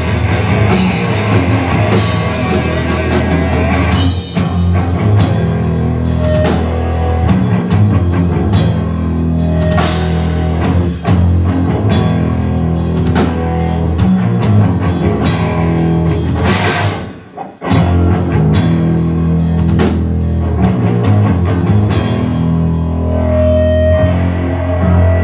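Live rock band playing loudly: distorted electric guitars, electric bass and a drum kit driving a steady beat. The band stops for a brief moment about seventeen seconds in and comes straight back in; near the end the cymbals drop out, leaving the guitars ringing with held notes.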